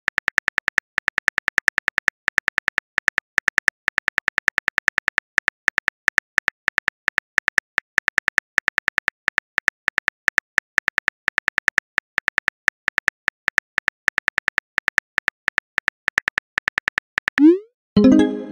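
Phone-keyboard typing sound effect: rapid, evenly spaced taps, about five a second, as a message is typed out. Near the end a short rising whoosh and a ringing tone sound as the message is sent.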